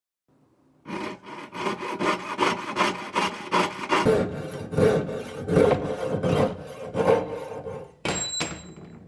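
A thin brass rod braced on a wooden bench pin, worked with a fine hand tool in rasping back-and-forth strokes. The strokes start about a second in at about four a second, slow to about two a second from about four seconds in, and end with two short strokes that ring briefly at a high pitch.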